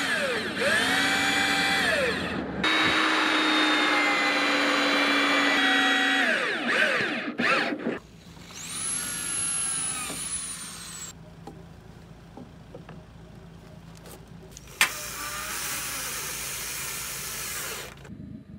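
Corded electric drill driving screws into timber, its motor whining up to speed and dropping off between screws in several runs through the first seven seconds. Later comes a thin high whine that falls away, a quieter stretch, one sharp knock, and another steady run of the drill near the end.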